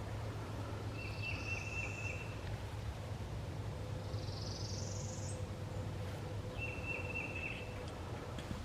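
Songbirds singing: a short trilled phrase comes twice and a high rising buzzy note twice, over a faint steady low rumble.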